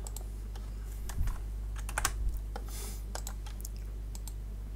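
A few scattered sharp clicks and key taps from a computer keyboard and mouse, over a steady low hum.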